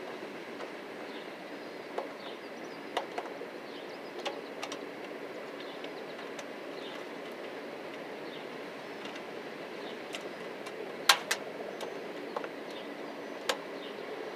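Screwdriver working screws out of a flatscreen TV's metal back panel: scattered sharp metallic clicks and taps, a few in the first five seconds, the loudest a pair about eleven seconds in and another near the end, over a steady background hum.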